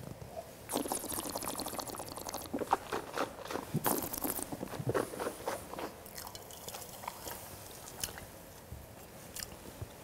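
A wine taster sipping orange wine: a noisy slurp of air drawn through the wine in the mouth, then several short wet mouth sounds as it is swished and swallowed.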